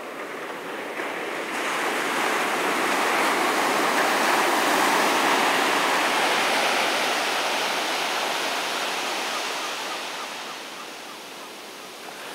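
A wave's foamy wash running up a flat sandy beach. It swells over the first few seconds and fades slowly as it draws back.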